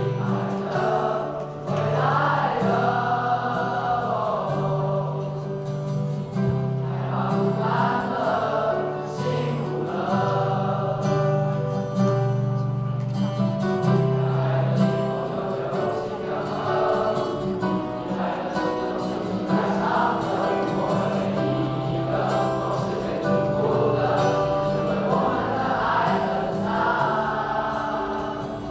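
Mixed choir of young male and female voices singing a pop song together, over steady low accompanying chords that change every second or two.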